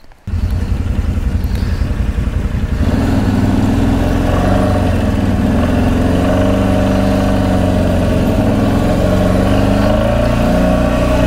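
CFMoto X8 ATV engine running while ridden, cutting in suddenly right at the start; from about three seconds in its pitch rises and falls with the throttle.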